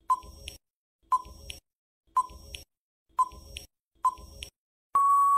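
Quiz countdown timer sound effect: a short beep every second, each followed by a fainter tick, five times, then a steady buzzer-like beep of about a second near the end signalling that time is up.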